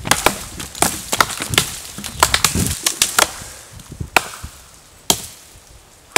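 Hatchets chopping into a dead, dry tree branch: two people's irregular strikes, about three a second at first, thinning to a couple of spaced blows and stopping about five seconds in, with one more strike at the very end.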